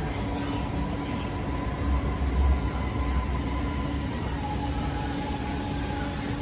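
A Beijing Subway Line 8 train at an underground platform, running with a steady hum and whine over a continuous rumble. A low rumble swells about two seconds in, and the higher whine steps down in pitch a couple of seconds later.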